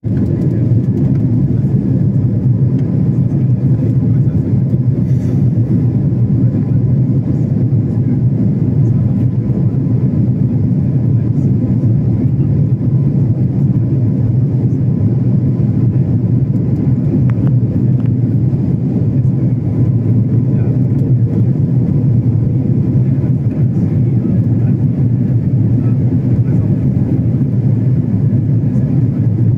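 Steady low rumble of an Airbus A330-300 airliner's engines and airflow heard from inside the passenger cabin on final approach.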